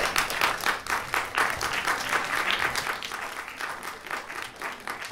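Theatre audience applauding, many hands clapping together, thinning a little toward the end.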